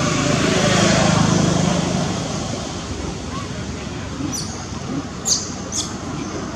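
A motor vehicle's engine hum with road noise, loudest about a second in and fading away. In the second half come three short, high chirps, each falling in pitch.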